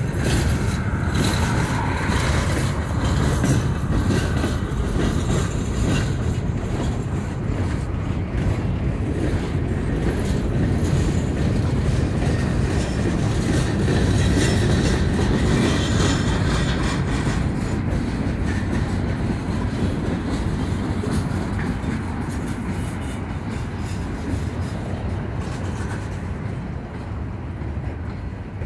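A cut of freight cars (boxcars, then gondolas) rolling past on the track: a steady rumble of steel wheels on rail, with many short clicks running through it.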